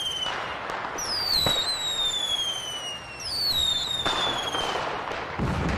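Fireworks going off: a series of whistling rockets, each a long falling whistle, with crackling and dull bangs between them.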